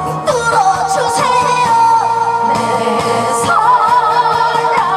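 A woman singing into a microphone over backing music, holding long notes with a wavering vibrato.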